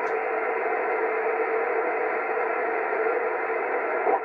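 Steady hiss and static from a CB radio's receiver tuned to 27.555 MHz upper sideband, the band noise heard between distant stations' transmissions.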